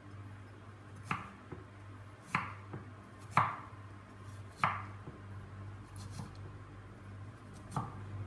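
Kitchen knife chopping snow pear pieces into smaller chunks: five sharp chops at uneven intervals with a few lighter taps between them. A steady low hum runs underneath.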